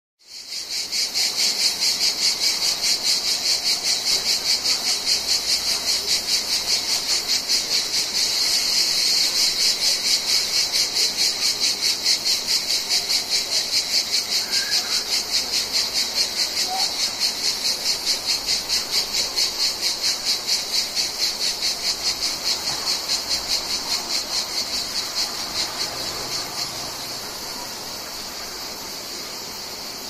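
Cicadas singing: a loud, high buzz that pulses rapidly and evenly. Near the end the pulsing stops, leaving a quieter, steady buzz.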